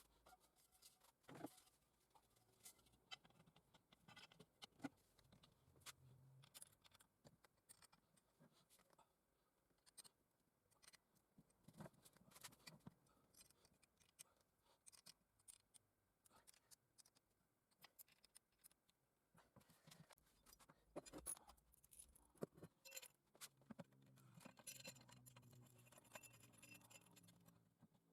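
Faint, scattered small clicks and light scraping, like small parts or tools being handled; a faint low hum joins near the end.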